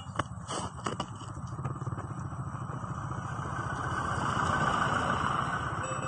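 A car driving past close by on a concrete road: tyre and engine noise swells to a peak about four to five seconds in, then fades. A few sharp footfalls of boots on concrete in the first second.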